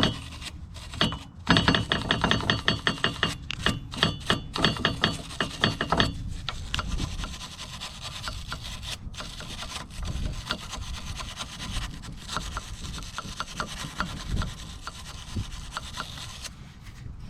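Wire brush scrubbing the grooves of a front brake caliper bracket, where the pad hardware clips sit, in rapid back-and-forth strokes. The strokes are louder for about the first six seconds, then lighter and quicker.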